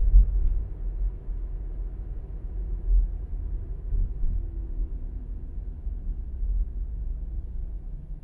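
Low rumble of a car's engine and tyres while driving, with a couple of louder low swells near the start and about three seconds in, easing off toward the end as the car slows to a stop.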